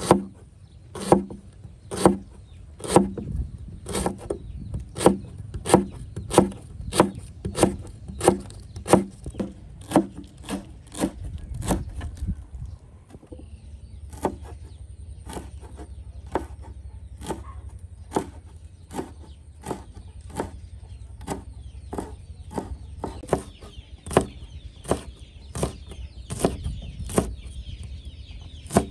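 Knife chopping on a wooden board in steady strokes, about two a second, with a short pause about halfway through before the chopping resumes.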